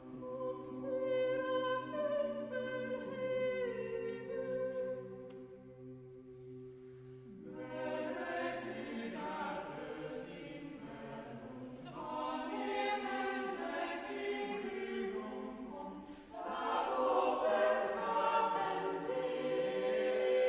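A cappella vocal ensemble singing a polyphonic setting of a medieval Middle Dutch Marian song. A low note is held beneath the upper voices for the first seven seconds or so. Then the voices move together in denser harmony, and the sound grows louder after a brief dip near the end.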